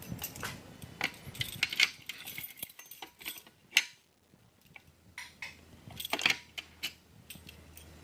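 Irregular light clicks, clinks and rustles of handling. There is one sharp knock a little before the middle and a louder cluster of clatter about six seconds in.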